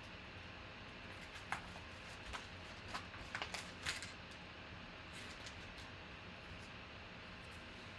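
Faint crinkling and a few sharp crackles as a yellow padded paper envelope is torn open and a clear plastic card holder is slid out of it, mostly in the first half; after that only a low steady hiss.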